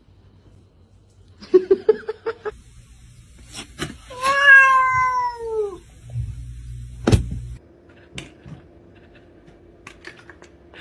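A domestic cat meowing once, a long call that falls in pitch, about four seconds in. A sharp click follows a couple of seconds later.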